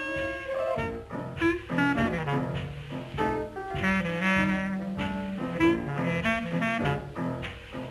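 Background music score in a jazz-band style, with short punchy notes and a held low note about four seconds in.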